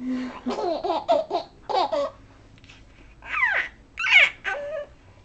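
Almost five-month-old baby laughing: a run of quick, choppy giggles in the first second and a half, then two high squeals that fall steeply in pitch.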